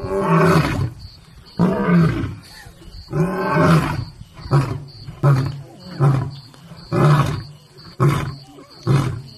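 Adult male lion roaring: three long, deep roars, followed by a run of shorter grunting roars a little under a second apart.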